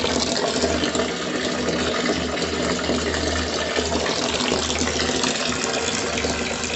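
Steady stream of filtered water pouring from the PVC-pipe filter outlet into a drum, a continuous running and splashing, with a low hum underneath.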